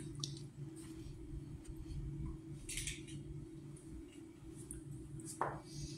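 A puppy chewing and mouthing a plastic toy: scattered soft crunches and crackles over a steady low hum, with one brief sharper sound about five and a half seconds in.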